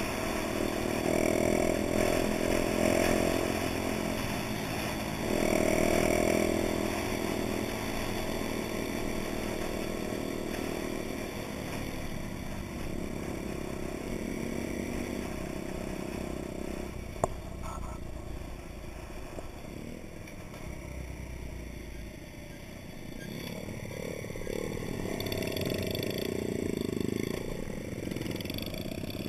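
Honda Dax minibike's small single-cylinder four-stroke engine running under way, revving up and easing off several times, louder in the first few seconds and again near the end. A single sharp click about halfway through.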